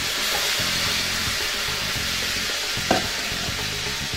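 Shrimp sizzling as they fry in melted butter in a pan, a steady hiss, with one light tap of a utensil about three seconds in.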